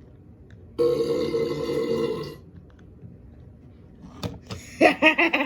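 A person burping once, long and drawn out, lasting about a second and a half.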